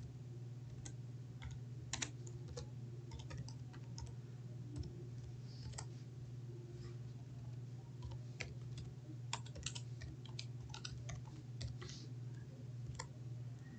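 Typing on a computer keyboard: irregular key clicks with uneven gaps, over a steady low hum.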